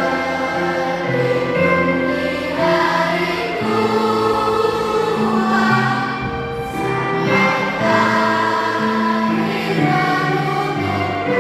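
Children's school choir singing a song in held chords with instrumental accompaniment.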